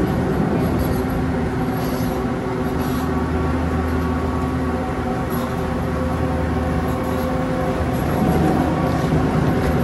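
Chairlift terminal machinery running with a steady hum of several held tones as chairs travel round the loading station; it gets a little louder near the end as a chair is boarded.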